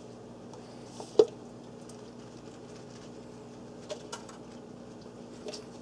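Light handling sounds of a potted plant being unwrapped: a clear plastic cup lifted off and set down, and paper towel packing pulled away. A few short clicks and taps, the sharpest about a second in, over a steady low hum.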